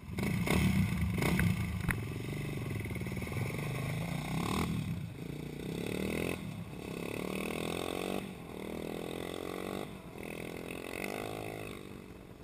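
Suzuki LTZ400 quad's single-cylinder four-stroke engine with a Motoworks SR4 slip-on exhaust, revving hard and accelerating up through the gears: each gear is a rising pitch cut off by a shift, several times over. It grows fainter as the quad pulls away.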